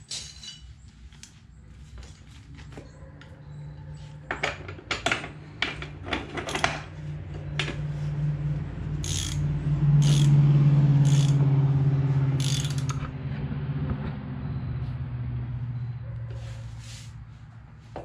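Ratchet wrench clicking as the rear axle nut of a dirt bike is tightened, with a low steady hum that swells through the middle and fades toward the end.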